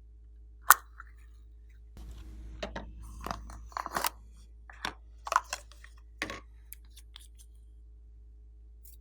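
Crunchy slime being squeezed and pressed by hand, crackling. There is one sharp loud crack about a second in, a busy run of crackles from about two to four seconds, then a few single cracks, and it goes quiet after about seven seconds.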